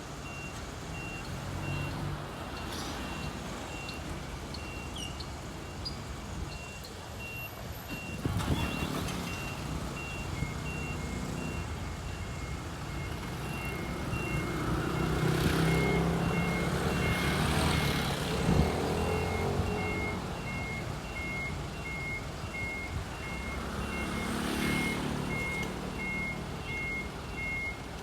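Fire trucks backing up: a truck reversing alarm beeps steadily, and about ten seconds in a second alarm at a lower pitch joins it, over the trucks' engines running, which swell twice.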